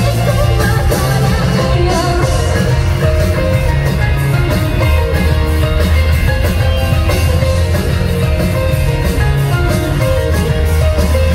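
Live rock band playing loud with electric guitar, bass and drums driving a steady beat, in a mostly instrumental passage near the close of a song.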